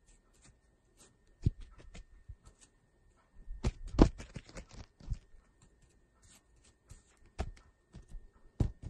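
Irregular soft knocks and rustles close to the microphone, loudest in a cluster about four seconds in.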